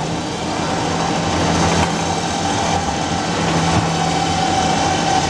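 Battery-powered electric winch of a home-built elevator starting up and running steadily, winding its wire cable onto the drum as it hauls the elevator. It gives a steady low hum with a higher whine above it.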